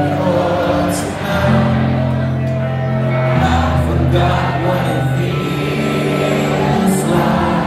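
Live rock band playing loud: electric guitars, bass, drums and keyboard.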